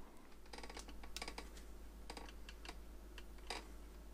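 Faint, irregular clicks and small crackles of a screwdriver and hands prying an oven-warmed 1999 Subaru Impreza headlight lens away from its plastic housing.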